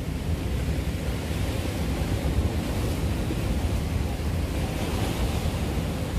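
Sea waves washing and breaking against the concrete blocks of a breakwater, with wind rumbling on the microphone. The surf swells a little louder a few seconds in.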